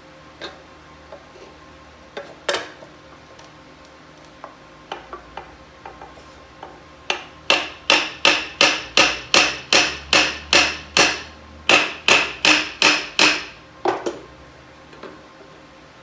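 Hammer striking metal: a few light taps, then a quick, even run of sharp blows, about three a second, with a short break partway through and one last blow near the end.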